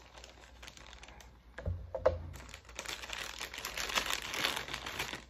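Plastic MRE packets being handled and crinkled, with a dull knock about two seconds in and a dense, steady crackling through the second half.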